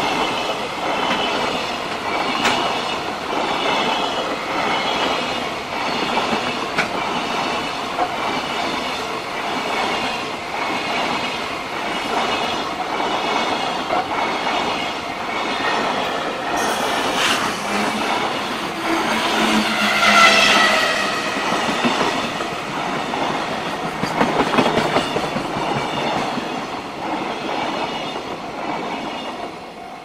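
Freight train container flat wagons rolling past at speed: a steady rumble of steel wheels on rail with occasional clicks over the rail joints. A brief wheel squeal comes about twenty seconds in, and the noise fades near the end as the last wagon goes by.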